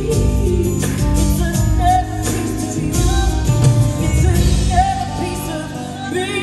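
Live band music with singing: a held, wavering melody line over steady bass and drums.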